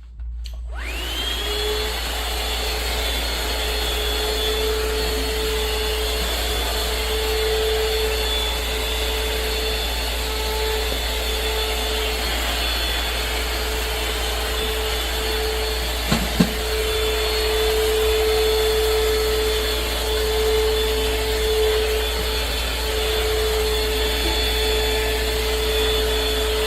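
Shark VacMop Pro cordless vacuum mop running: its motor spins up with a rising whine within the first second, then runs steadily with a high whine. Two brief knocks come about sixteen seconds in.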